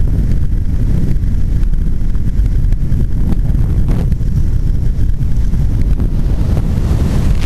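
Wind buffeting the camera's microphone during a parachute descent under canopy: a steady, low rumbling rush.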